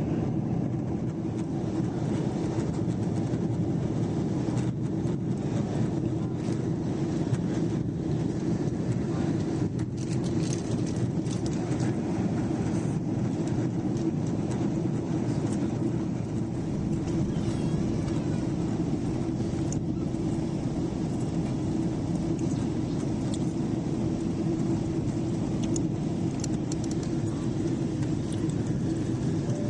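Steady cabin noise inside a Boeing 777-300 airliner on approach: a constant low rumble of jet engines and airflow, with an even hum running through it.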